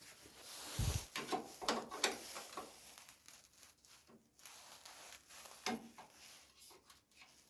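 Scattered light knocks, clicks and scrapes of sheet-steel and tool handling at a workbench, with one low thump about a second in.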